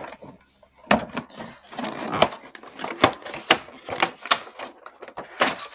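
Plastic and cardboard packaging of a razor gift set being handled and opened, an irregular run of sharp crackles and clicks.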